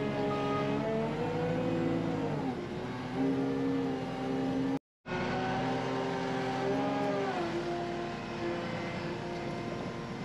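Skid steer engine running, heard from inside the cab, its pitch dropping twice: about two and a half seconds in and again about seven seconds in. The sound cuts out completely for a moment about halfway through.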